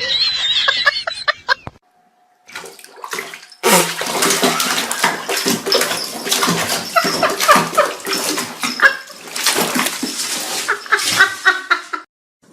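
Water running and splashing, broken by two brief cuts to silence.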